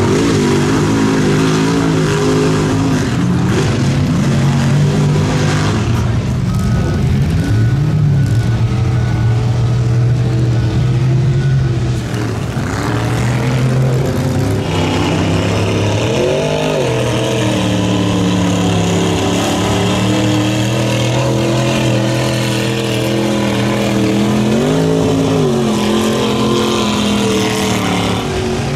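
Engines of lifted 4x4 mud trucks running hard at high revs while driving through a mud hole. The pitch swells up and back down twice in the second half.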